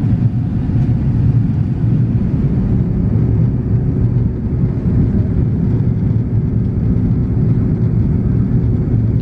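Steady low rumble of engine and airflow noise inside an Airbus A330-300's cabin, heard from a window seat over the wing during the descent. A faint steady hum joins about three seconds in.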